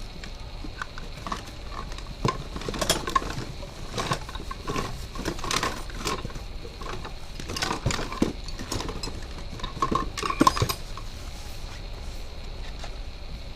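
Metal parts and tools clinking and knocking irregularly during hands-on work on a scooter's front end.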